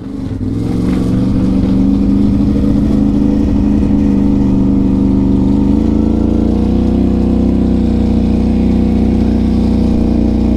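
Can-Am Renegade ATV's V-twin engine running steadily at low speed, its pitch stepping slightly about six seconds in.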